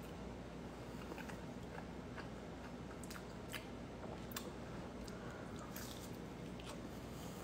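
A person chewing and biting into a quesadilla dipped in Alfredo sauce, close up: faint wet chewing with scattered soft clicks and small crunches.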